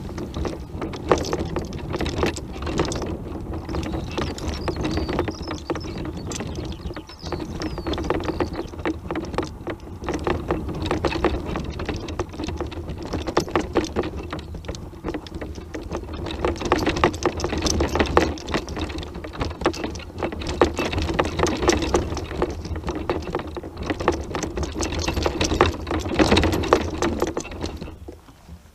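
Tramper off-road mobility scooter driving over rough ground, its electric motor humming steadily while the frame rattles and knocks as it jolts over bumps. The motor and rattling stop near the end.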